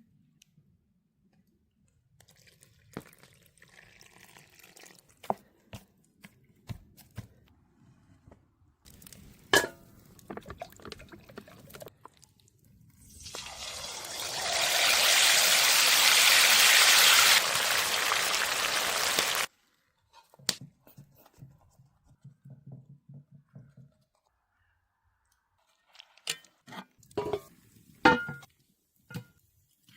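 Liquid being poured for about six seconds in the middle, building up and then stopping abruptly. Scattered knocks and clicks before and after it.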